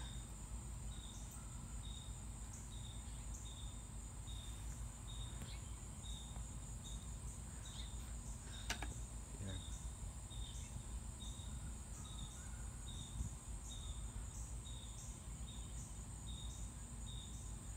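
Evening chorus of crickets and other insects: a steady high-pitched trill with a regular chirping pulse a little faster than once a second. A single sharp click comes about nine seconds in.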